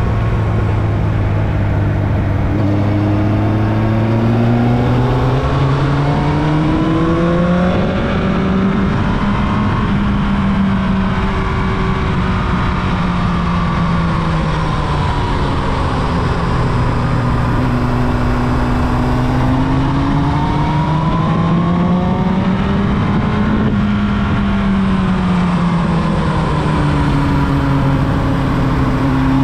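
Carburetted Yamaha YZF-R1 inline-four engine under way, its note rising and falling slowly several times as the bike speeds up and eases off, over a steady rush of noise.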